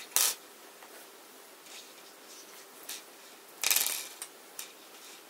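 Small wood screws being picked up and handled on a laminated chipboard board: a sharp click just after the start, a few light ticks, and a brief scraping rattle a little before four seconds in, followed by two more small clicks.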